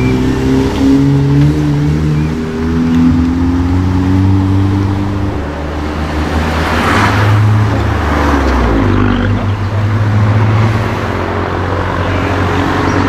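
Engines and exhausts of modified Volkswagen Golfs pulling away and driving past, the engine note stepping up and down. About seven seconds in, one passes close with a rush of exhaust and tyre noise.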